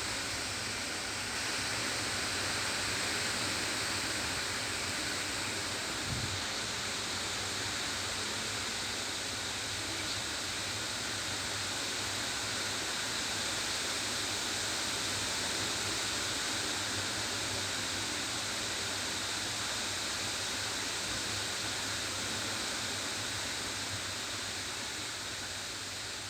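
Peepal (sacred fig) leaves rustling in the wind as a steady, even hiss.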